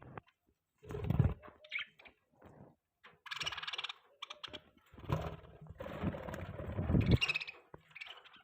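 Budgie chattering and chirping in short bursts, mixed with louder low rustling and knocking as it works at a green leaf.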